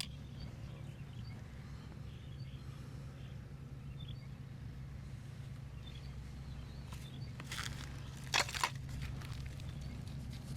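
Hand massage on a person: faint rubbing and small clicks over a steady low hum, with two sharp smacks about eight and a half seconds in.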